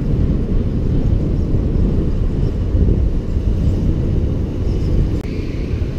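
Wind buffeting an action camera's microphone on a moving bicycle: a steady, loud, low rumble.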